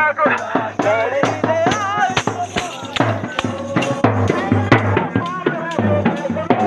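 Devotional procession music: a hand drum struck with a stick in quick, frequent beats, with rattling percussion and a voice singing or chanting over it.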